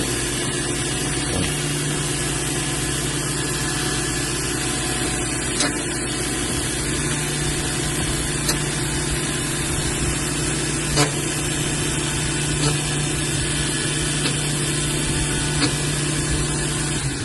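Key-cutting machine running steadily while cutting a replacement Mul-T-Lock key, a constant motor hum with a few faint ticks. It stops abruptly at the end.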